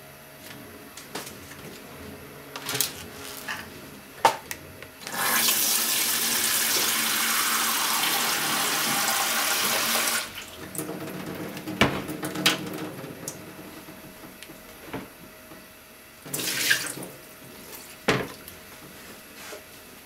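Tap water running for about five seconds, filling a plastic microwave pasta-cooker container over dry spaghetti. Knocks and clatter of the plastic container being handled come before and after, with another brief burst of noise near the end.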